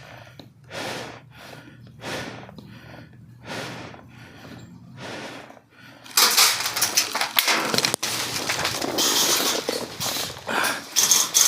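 Slow, regular breaths close to the microphone, about one every second and a half. About six seconds in, a much louder, dense rustling and scraping close to the microphone takes over.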